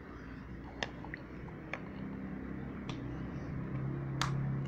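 Small pump spray bottle spraying slime activator onto clear slime: about five short, sharp clicks of the sprayer, the loudest about four seconds in, over a faint low hum.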